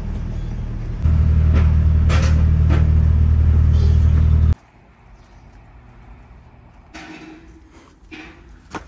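Volvo FH truck's diesel engine running steadily, heard from inside the cab, getting louder about a second in. It cuts off abruptly a little past halfway, leaving a much quieter outdoor background with a few short knocks near the end.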